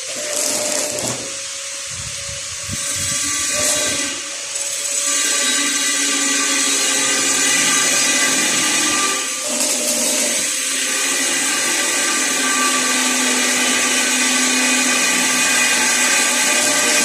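Electric power tool running continuously, its motor tone dipping and recovering slightly as it works under load.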